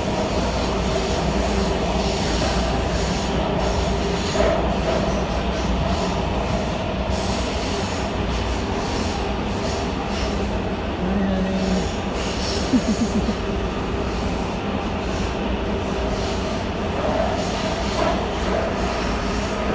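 Washington Metro subway car running on the track, heard from inside the car: a steady rumble and hiss of the wheels and motors with a ringing wheel squeal that grows stronger near the end. A short low tone sounds about halfway through, followed by a quick rattle of clicks.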